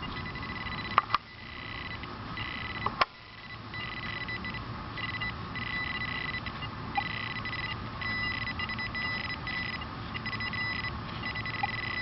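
Metal detector's electronic tone sounding in on-off pulses of varying length, breaking into shorter, quicker beeps toward the end as it closes on a buried coin. Two sharp knocks come about one and three seconds in.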